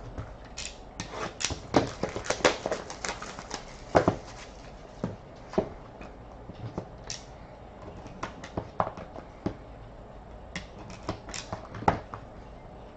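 Hands opening and handling a sealed trading-card box and its packaging: irregular clicks, taps and crinkly rustles, thick for the first few seconds and then scattered.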